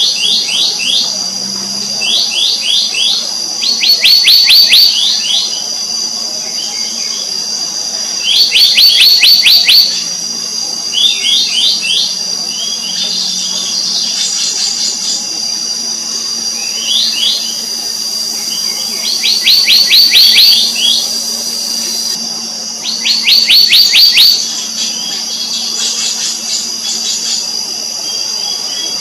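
Black-naped monarch calling: short, quick runs of high, ringing notes, each run about a second long, repeated every couple of seconds, some much louder than others. A steady high-pitched drone runs underneath.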